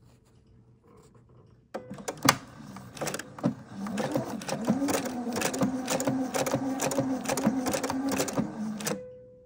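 Domestic sewing machine sewing a blind hem stitch. It starts about two seconds in with a sharp click, its motor whine rises as it speeds up, then it runs steadily with a rhythmic needle clatter and stops shortly before the end.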